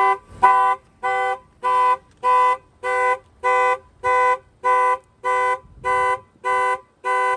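Aftermarket Clifford car alarm on a 2003 Infiniti G35, tripped by a knock on the tyre, sounding a loud steady tone that pulses on and off about one and a half times a second.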